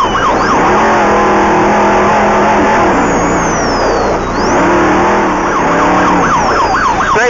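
Off-road race truck's engine heard from inside the cab, running at steady revs under load. The revs drop around three seconds in and pick back up about a second later.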